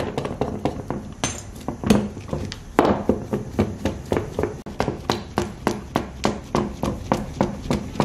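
Rapid, regular knocking on a hard surface, about four knocks a second, with two louder knocks about two and three seconds in.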